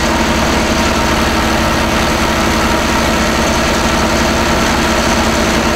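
Truck-mounted drilling rig's engine running steadily at the borehole, a loud constant drone with a fast even pulse.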